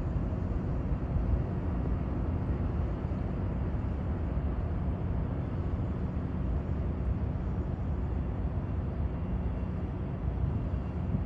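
Low, steady jet rumble of a Boeing 777 rolling along the runway, with wind buffeting the microphone.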